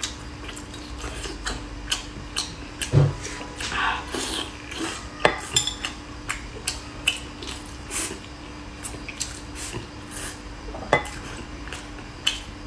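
Close-up eating sounds: wooden chopsticks clicking and scraping against a glass bowl of rice, with wet chewing of fatty braised pork belly. The clicks come irregularly, every second or so, over a faint steady hum.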